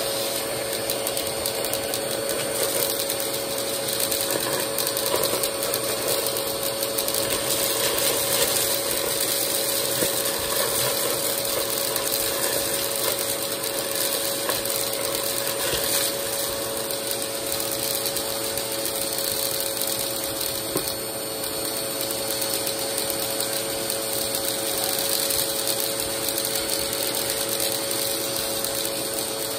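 Vacmaster vacuum cleaner running steadily with a dense, continuous rattling crackle as sequins and confetti are sucked up through its hose and wand.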